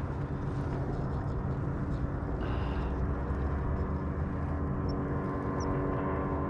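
Steady engine drone, an even hum that holds without change.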